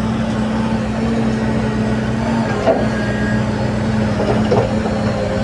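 A vehicle's engine running steadily, with a short knock about two and a half seconds in and a few lighter ones near the end.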